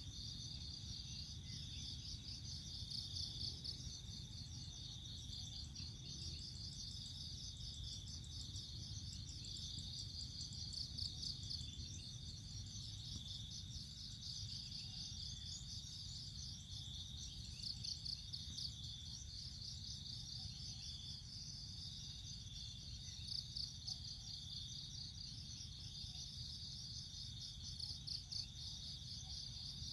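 Steady high-pitched chorus of chirring insects, with fast pulsing chirps and a constant shrill tone, over a low steady hum.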